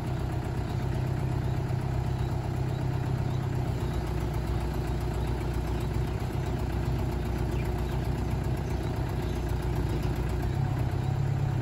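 Crane truck's engine running steadily at a low idle while it powers the truck-mounted crane lifting concrete piles; the low hum grows a little stronger near the end.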